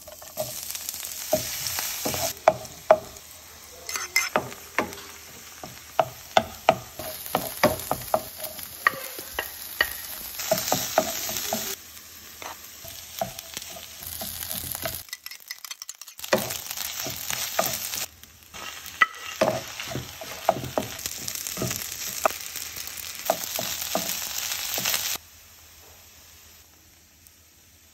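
Diced vegetables and rice frying in oil in a nonstick pan, sizzling steadily, with many sharp clicks and scrapes from a wooden spoon stirring and knocking against the pan. The sizzle changes abruptly several times and falls away about three seconds before the end.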